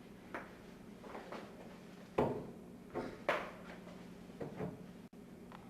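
A person sneezing repeatedly: about six short sneezes in quick succession, the two loudest near the middle.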